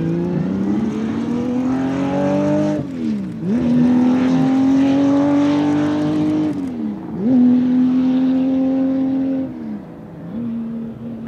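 Ferrari 330 GTO recreation's four-litre Colombo V12 accelerating hard through the gears. The note climbs steadily in each gear and falls sharply at upshifts about three, seven and ten seconds in. It is quieter after the last shift as the car draws away.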